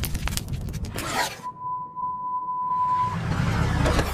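Cartoon spark and fire sound effects: a quick run of crackles and pops, then a single steady high tone for about a second and a half, then a rough rumbling whoosh.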